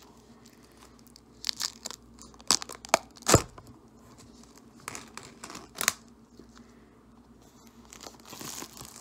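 Clear plastic shrink wrap being torn and peeled off a small cardboard Apple Pencil box by hand, crackling in short sharp crinkles. Near the middle comes one louder, deeper knock, and near the end a softer rustle of the film as the box is handled.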